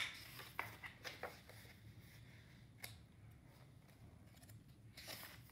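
Quiet paper handling as a hardcover picture book's page is turned by hand: a sharp click at the start, faint rustles and taps, and a brief soft swish of paper near the end.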